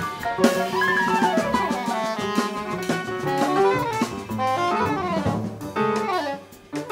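Jazz quartet improvising together: soprano saxophone playing quick, shifting lines over piano, double bass and drum kit. The music briefly thins almost to a stop shortly before the end, then the band comes back in.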